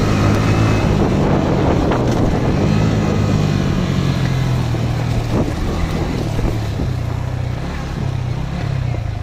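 Motorcycle engine running steadily under way, with heavy wind noise on the microphone; its pitch wavers and eases slightly near the end.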